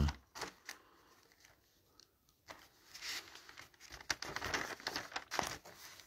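Paper pages of a printed booklet being turned and handled. There are two brief rustles at the start, a short quiet stretch, then an irregular run of rustling and crinkling from about two and a half seconds in.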